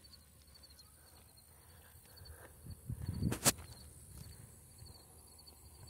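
Faint insects chirping in a steady, evenly repeating high pulse. A few low thumps come around the middle, followed by one sharp click.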